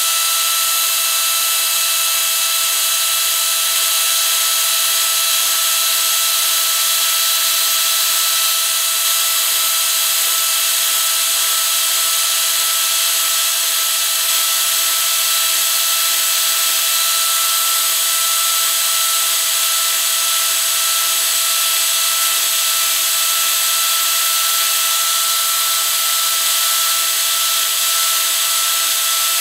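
Arbortech Mini Pro power carver running with a steady high-pitched whine, its spinning cutter dipping into the wood to carve rows of scallop texture.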